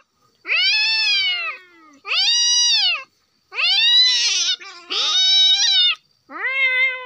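A cat meowing loudly five times, each a long, drawn-out cry of about a second that rises and then falls in pitch, the last one shorter.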